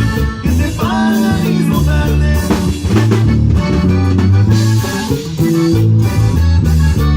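Live band music with bass, drum kit and guitar playing over a steady beat.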